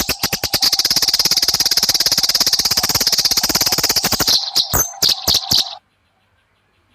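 Eurasian tree sparrow chattering in a fast, excited run of sharp chirps, about a dozen a second, the agitated call of a sparrow squaring up to fight. After about four seconds it breaks into a few separate chirps, then stops.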